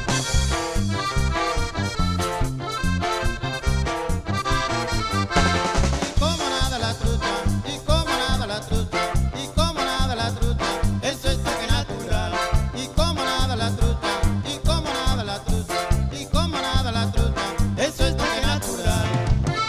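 Norteño band music led by accordion over a steady, bouncing bass beat, instrumental with no singing.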